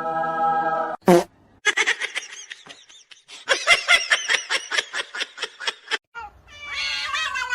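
A rapid run of short, repeated animal cries, then a cat meowing near the end.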